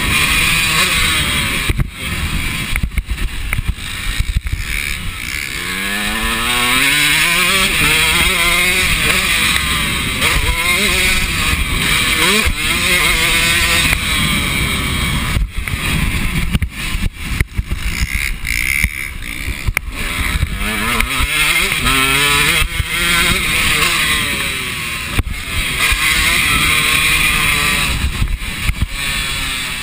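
KTM motocross bike's engine revving hard under load, its pitch climbing repeatedly as it pulls through the gears and dropping between climbs, with repeated sharp knocks and thumps mixed in.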